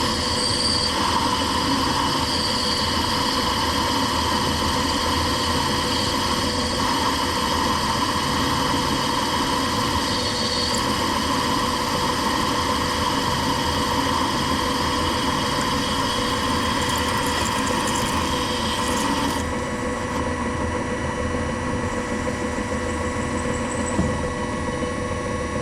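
A workshop machine's electric motor running steadily with a constant hum, a higher hiss over it cutting out about three-quarters of the way through.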